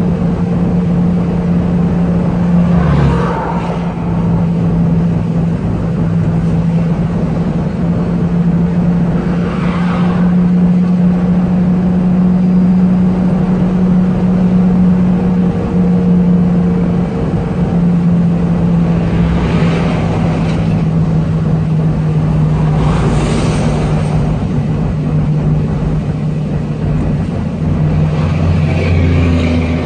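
Heavy diesel truck engine and turbocharger running under steady load as heard inside the cab, a constant low drone. Several brief whooshes of oncoming vehicles passing, one near the end.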